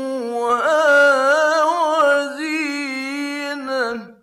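A male Qur'an reciter chanting in the melodic Egyptian mujawwad style, one voice held long and ornamented in wavering turns of pitch, from a 1960s radio recording. The voice breaks off abruptly near the end.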